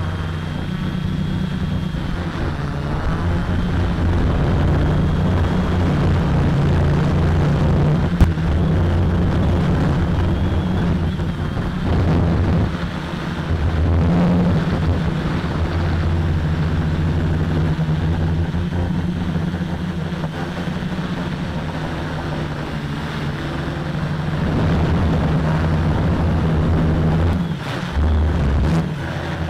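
Multirotor quadcopter's electric motors and propellers running in flight, a steady, loud buzzing hum, dipping briefly about twelve seconds in and again near the end.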